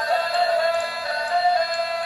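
Background music with a synthesized melody of held, wavering notes.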